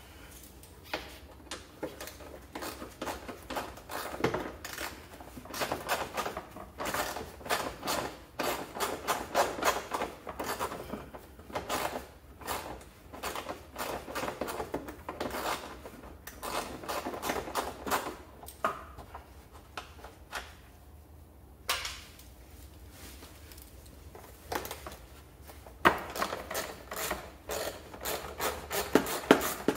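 Hand tools working on a scooter's rear plastic bodywork: runs of quick clicking, rattling and scraping as screws are worked, with a lull about two-thirds of the way through and a few sharper knocks near the end.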